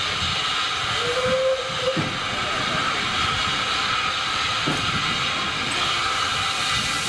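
Steady hiss of steam from a narrow-gauge steam locomotive standing with the train, with a brief squeal about a second in.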